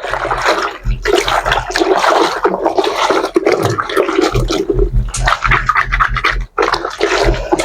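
Clothes being hand-washed in water: wet fabric scrubbed and rubbed together by hand, with water sloshing.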